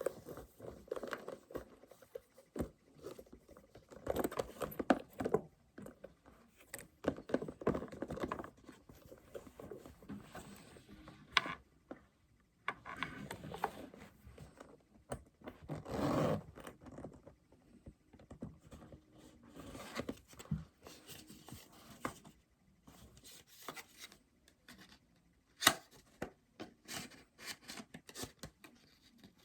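Packaging being handled and opened: scattered rustling, scraping and tearing, with sharp clicks and taps throughout, one click louder than the rest near the end.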